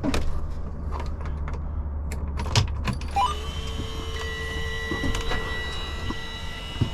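Scattered clicks and knocks over a low hum, then about three seconds in a truck's power inverter comes on with a steady electronic whine of several high tones at once.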